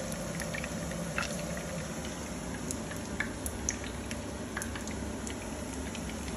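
Pork belly pieces frying in hot oil in a pan: a steady sizzle with scattered pops and crackles.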